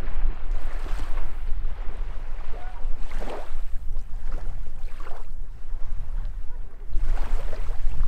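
Wind buffeting the microphone with a steady low rumble, over small waves washing onto a sandy shore; the wash swells a few times, about three, five and seven seconds in.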